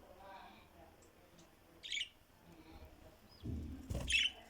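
Pet parrot giving short, sharp high chirps, twice, about two seconds apart, with quieter chatter between; a low rumbling noise comes in near the end.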